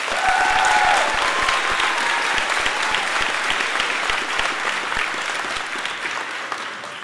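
Audience applauding, with a short vocal cheer in the first second; the clapping tapers off near the end.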